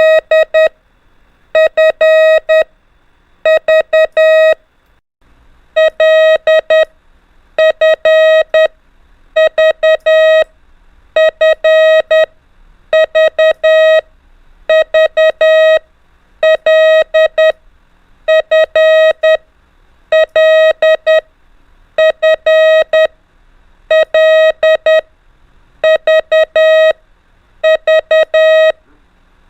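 Morse code (CW) practice tone: a steady mid-pitched beep keyed in dots and dashes, sending the letters L, F and V in turn, each letter four elements long, about one letter every two seconds.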